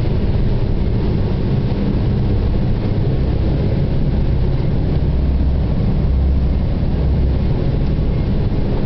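Steady low drone of a boat's onboard machinery, unchanging throughout.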